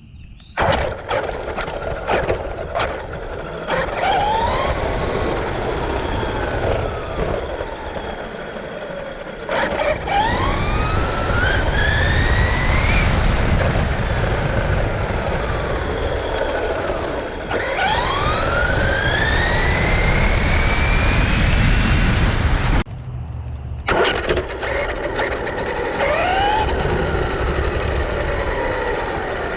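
Brushless electric motor of a Traxxas Rustler RC car whining up in pitch each time it accelerates hard, four runs in all. A steady low rumble of tyres and wind on the road runs underneath.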